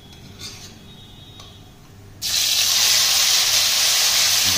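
Onion-garlic paste dropped into hot mustard oil in a kadhai, bursting into a loud, steady sizzle about two seconds in.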